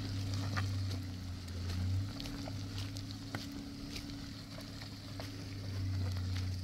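Pickup truck engine running steadily as the truck drives slowly up a muddy dirt track, a low drone that eases about two seconds in and builds again near the end. Faint scattered clicks sound over it.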